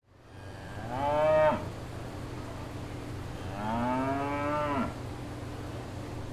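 A cow mooing twice: a short moo about a second in, then a longer one about three and a half seconds in, over a steady low background hum that fades up at the start.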